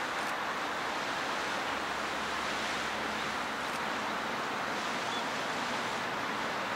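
Flood Geyser's vent boiling up in low, splashing surges of hot water and steam, a steady rushing, surf-like noise.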